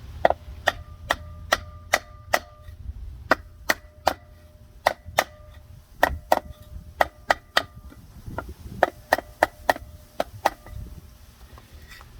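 Rubber mallet striking a block of 4x6 lumber held against a new wheel bearing seal, driving it into the trailer wheel hub a little at a time: about 25 sharp wooden knocks in runs of two to three a second, with short pauses between runs and a faint ringing tone under the blows.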